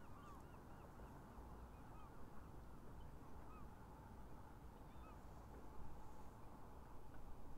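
A distant flock of geese honking, many short calls overlapping throughout, faint over a low rumble.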